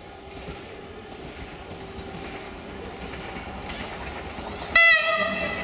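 Train approaching and growing louder, then about five seconds in a loud train horn blast starts, a single note that dips slightly and then holds.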